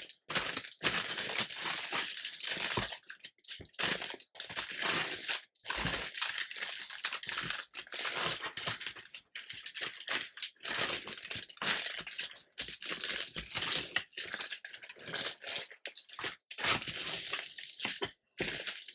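Air fryer parchment paper liners being folded and flattened by hand, crinkling and crackling in irregular bursts with brief pauses.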